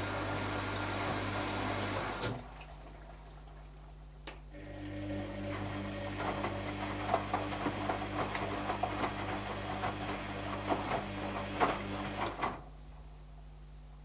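Bush WMDF612W washing machine in its wash cycle: the drum motor hums as the wet load tumbles and water sloshes, then stops for about two seconds. After a single click the drum turns again, the laundry splashing and thudding in the water, and it stops again near the end.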